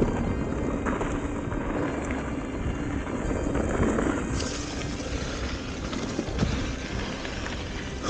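Mountain bike riding fast down a dirt trail: a steady rush of tyre and trail noise with occasional knocks as the bike goes over bumps, and music mixed in underneath.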